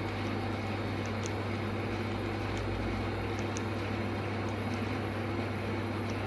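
Steady low hum under an even hiss, with a few faint high ticks.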